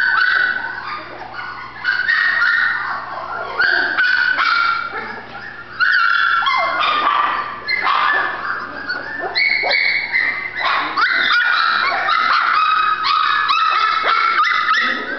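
Very young golden retriever puppy whining and yelping repeatedly, in high-pitched cries that slide in pitch and barely stop.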